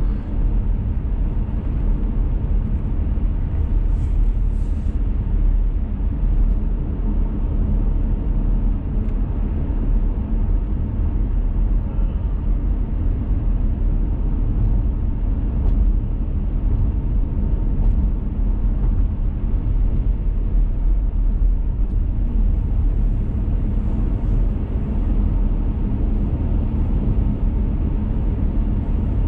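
Steady low rumble of a car driving, heard from inside the cabin: road and tyre noise on a wet road.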